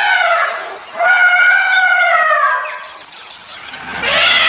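Elephant trumpeting: two long, brassy trumpet calls that each slide down in pitch at the end, then a rougher, noisier blast near the end.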